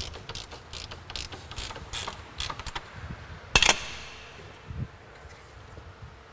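Hand ratchet clicking in short, irregular runs as radiator mounting fasteners are tightened. About three and a half seconds in, one sharp metallic clank that rings briefly.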